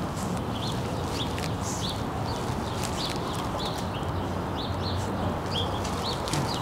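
Small birds chirping in many short, high notes over a steady low background rumble.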